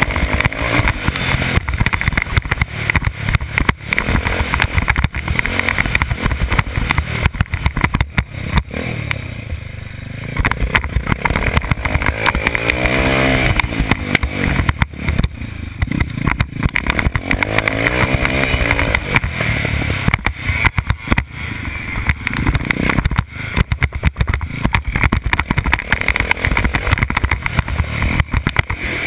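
Motocross bike engine under hard riding, revving up and easing off again and again, heard from a camera mounted on the bike. Constant buffeting and jolts from wind and bumps sit under the engine.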